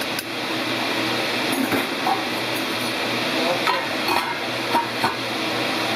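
Food sizzling in a pan while a utensil stirs it, with several short clinks of the utensil against the pan.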